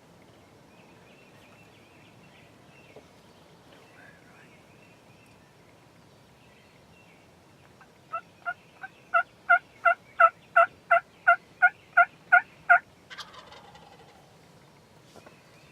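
A long run of about fifteen turkey hen yelps, about three a second, building in loudness. Right after comes a brief falling, rattling call like a gobble.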